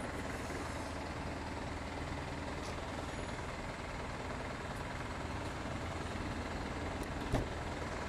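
Steady running of a vehicle engine, a low hum under a noise haze, with one sharp knock about seven seconds in.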